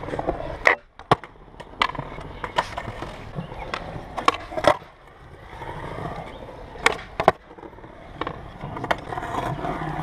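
Skateboard wheels rolling on smooth concrete, the rumble swelling and fading, broken by sharp clacks of the board's tail popping and the board landing. Several of the clacks come in pairs about half a second apart.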